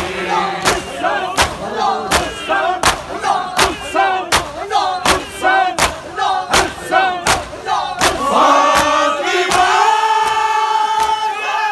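Men performing matam, beating their chests in unison with a sharp slap about four times every three seconds, under a group of male voices chanting a noha. About eight seconds in the slaps stop and the voices hold a long, loud shouted cry together.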